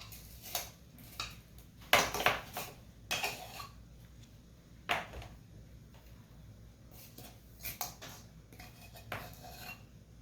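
A teaspoon clinking and scraping against a container while baking soda is scooped out and tipped in, spoonful by spoonful. There are a handful of short sharp clinks, the loudest about two seconds in and about five seconds in.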